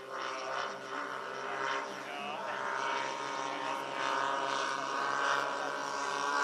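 Twin propellers of a large 1:8 scale radio-controlled Dash 8 model airliner, a steady droning hum that grows louder as the model banks around toward the field.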